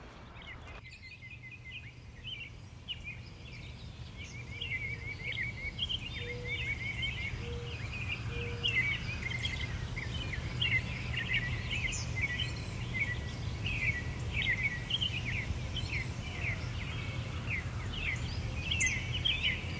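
Many small birds chirping and twittering steadily, over a low, even background hum.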